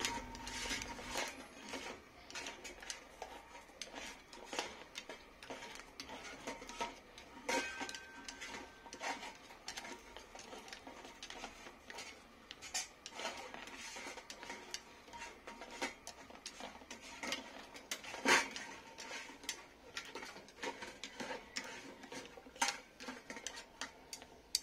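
Chopsticks clicking and tapping against eggshells and a stainless steel tray as steamed eggs are turned while they roast over the burner: irregular light clicks, with one sharper knock about three-quarters of the way through.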